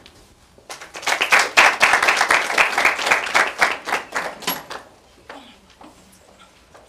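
Audience applauding: a burst of clapping that starts about a second in and dies away after about four seconds.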